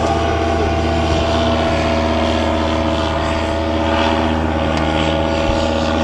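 Powered paraglider's engine and propeller droning overhead at one steady pitch, with a strong low hum under it.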